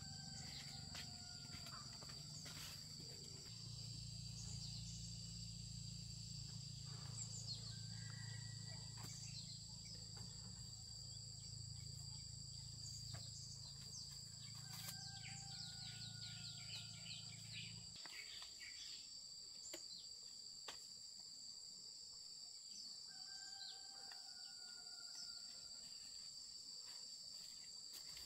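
Insects chirring steadily in two high, even tones, with a low hum that cuts off about two-thirds of the way through. A few short falling whistles are heard now and then.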